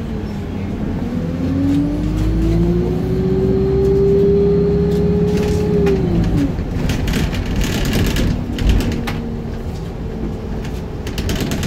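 Wright StreetLite single-deck bus heard from inside the saloon, its drivetrain whine rising in pitch as the bus gathers speed, holding, then dropping away about six seconds in as it slows. Light rattles and a thump follow near the end.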